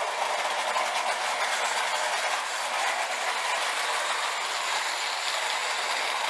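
Lionel Santa Fe U36B model diesel locomotive running on O-gauge three-rail track: its electric motor, gears and wheels on the rails make a steady rushing noise.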